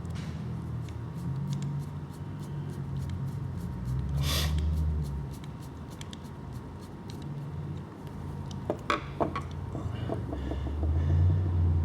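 Small clicks and knocks of parts and tools being handled while a new motor and pinion gear are fitted to an RC truck's transmission, with a cluster of sharper clicks about nine seconds in, over a steady low hum. A short hiss about four seconds in.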